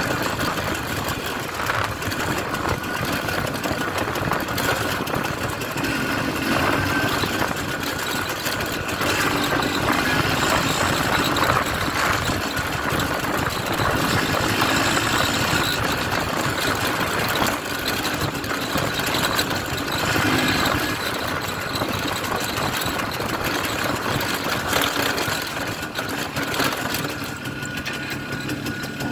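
1967 Pannonia P10's 250 cc single-cylinder two-stroke engine running under way, its pitch rising and falling with the throttle and easing off near the end.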